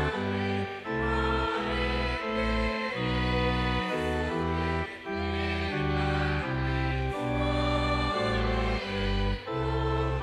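A congregation singing a Tamil hymn together to organ accompaniment. The chords are held and move on every half second to a second.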